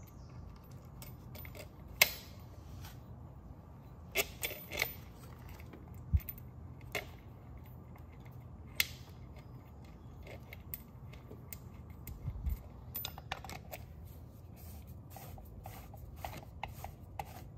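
Scattered light clicks and taps of metal parts and bolts being handled as an LED fog lamp assembly is fitted to its metal mounting bracket, sharp single clicks every second or two, then a run of small rapid clicks near the end as a bolt is driven in.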